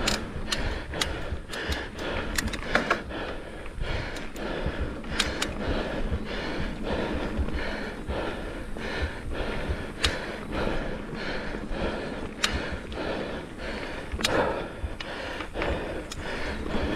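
Mountain bike rolling along a dirt trail: a steady rushing, rumbling noise from tyres and air, broken by many sharp clicks and rattles from the bike over bumps.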